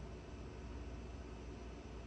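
Steady background hiss with a low hum and no distinct events: room tone.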